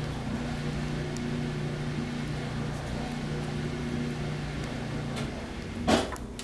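A steady machine hum with a low, even tone and a fainter pulsing tone above it, which cuts off about five seconds in. Just after, a single sharp knock.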